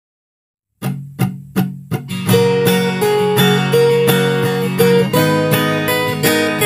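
Acoustic guitar music: after a short silence, a few separate strums just under a second in, then steady rhythmic strumming with a melody from about two seconds in.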